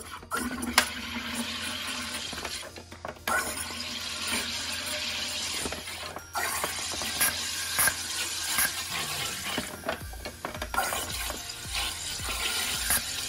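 SodaStream Spirit carbonating a bottle of water: the hand-pressed gas button sends CO2 hissing and bubbling into the water in several long pushes of a few seconds each, with brief breaks between them.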